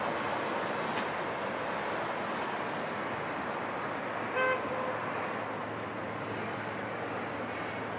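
Steady wash of distant city traffic noise, with a short car horn toot about halfway through, followed at once by a briefer, fainter beep.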